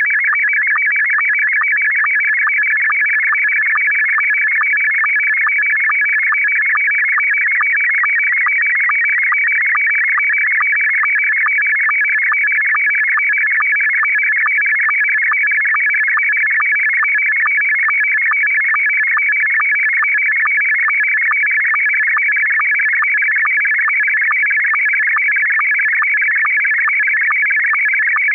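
Slow-scan television (SSTV) image signal: loud, warbling, high-pitched tones that shift rapidly as they carry the picture line by line, with a short repeating pulse marking each line in an even, steady rhythm.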